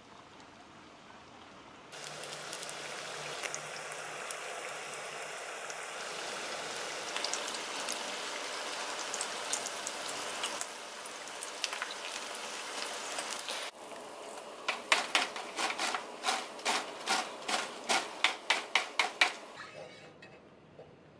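Chicken wings deep-frying in hot oil, a loud steady sizzle that starts about two seconds in. Later comes a quick run of sharp clicks, about three a second for several seconds, over quieter frying.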